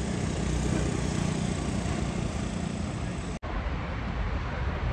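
Steady city street noise of passing road traffic, with a momentary break about three and a half seconds in.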